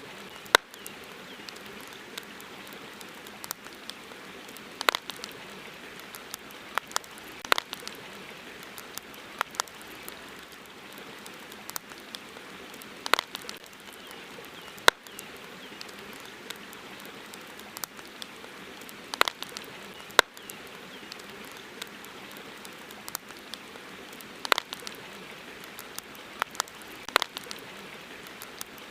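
Wood campfire crackling: sharp, irregular pops every second or few over a steady background hiss.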